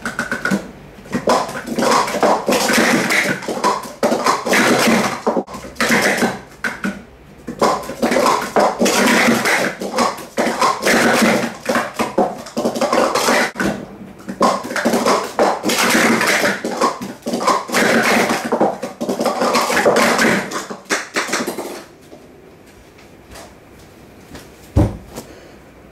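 Plastic sport-stacking cups clattering rapidly on a stacking mat as they are stacked up and down at speed, in three runs with brief breaks, stopping about 22 seconds in. A single low thump follows near the end.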